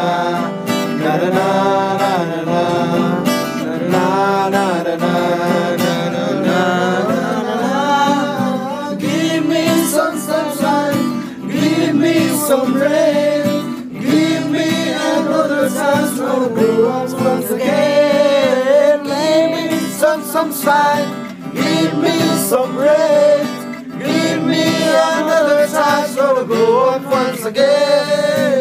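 Acoustic guitar strummed while several young men sing a song along with it.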